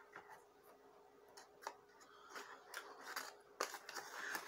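Paper liner inside a box of cornstarch crinkling as it is handled, with powdered cornstarch being scooped out. A run of faint rustles and scrapes, sparse at first and busier after about a second and a half.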